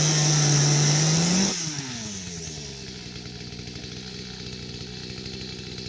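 A motor running steadily, which rises slightly in pitch about a second and a half in, then shuts off and winds down with falling pitch. A quieter, lower hum follows.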